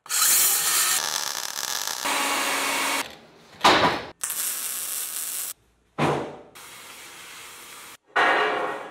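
A Makita circular saw fitted with a metal-cutting blade cuts through steel plate for the first three seconds. After that come short, edited-together bursts of other metalworking noise with abrupt cuts between them, including a sharp hit that dies away about six seconds in.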